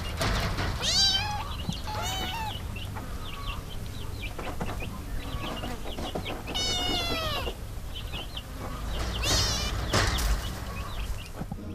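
Kittens meowing: four high meows that fall in pitch, the third the longest, with short, faint high squeaks between them.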